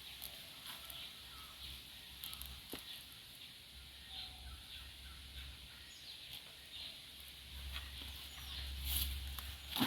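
Faint poultry clucking and short calls now and then, over light rustling and small clicks of soil and tubers being handled, with a sharp knock near the end.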